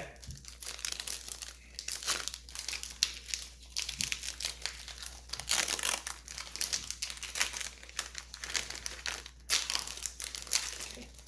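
Pokémon card pack wrappers crinkling and tearing as they are peeled open, a continuous run of irregular crackles.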